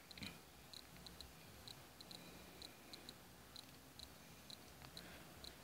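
Near silence with faint, short ticks repeating about twice a second, over a low hum.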